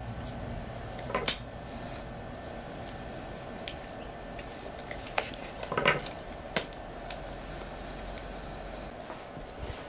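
Light knocks and clinks of dishes or containers being handled, about half a dozen scattered through, the loudest about a second in and just before the middle, over a steady low background hum.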